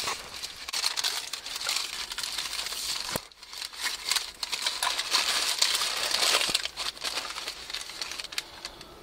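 Paper burger wrapper crinkling and rustling as it is unfolded by hand, a dense run of small crackles with a brief lull a little after three seconds in.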